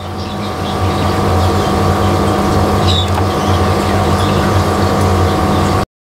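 Steady mechanical hum with a low electrical buzz and a noisy hiss over it. It cuts off suddenly near the end.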